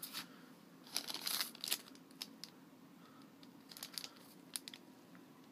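Packaging crinkling and rustling in a few short bursts as candy packets are handled and lifted out of an open cardboard box.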